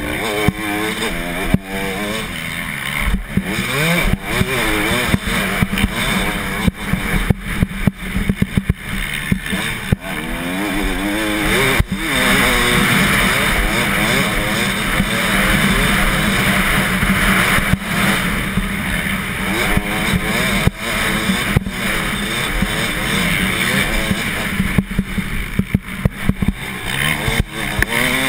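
Motocross bike engine ridden hard around a dirt track: revs rise and fall repeatedly through gear changes and turns, then hold high and steady on a straight about twelve seconds in, before rising and falling again. Short knocks from track bumps and wind noise on the helmet-mounted camera run throughout.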